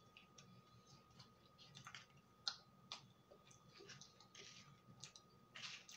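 Quiet, scattered clicks and crinkles of eating close to the microphone: a cupcake liner being peeled off and the cake chewed. The loudest are a sharp click about two and a half seconds in and a short crinkle near the end.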